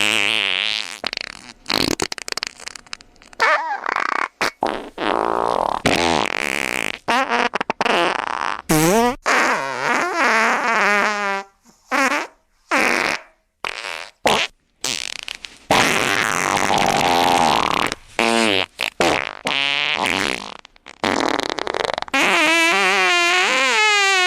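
A string of fart sound effects one after another, from short sputtery pops to longer ones whose pitch wobbles up and down. Several brief silent gaps fall around the middle.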